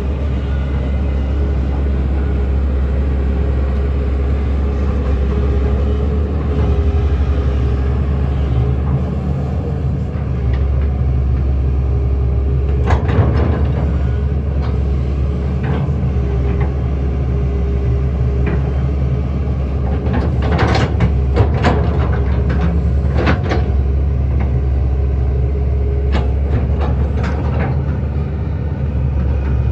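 Hydraulic excavator's diesel engine running steadily under load, with scattered sharp clanks and knocks, a cluster of them in the second half.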